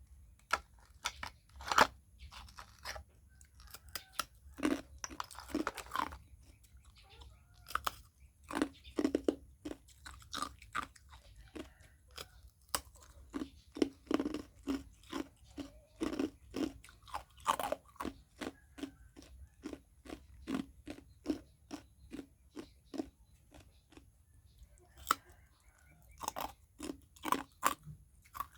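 Ice cubes being bitten and chewed: a long, irregular run of sharp, cracking crunches.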